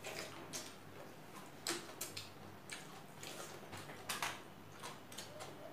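Quiet eating sounds: irregular wet clicks and smacks of mouths chewing rice eaten by hand, with a few light taps of fingers on the plates.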